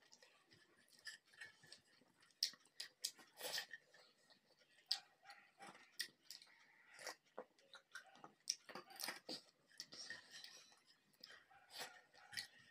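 Faint eating sounds: fingers mixing rice and dal on a plate, and mouth chewing with small wet smacks and clicks coming irregularly.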